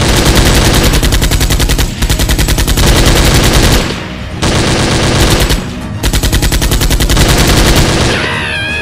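Rapid automatic machine-gun fire, in four long bursts with short breaks between them. This is a dubbed gunfire sound effect laid over the toy blaster, not the blaster's own sound.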